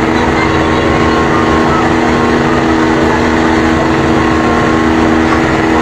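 An engine running steadily at constant speed: a loud, unbroken drone with a strong hum over heavy noise.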